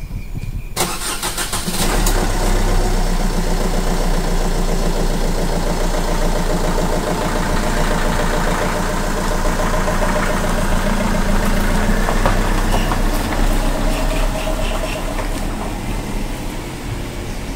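Car engine cranking and starting about a second in, then running steadily before growing quieter near the end as the car pulls away.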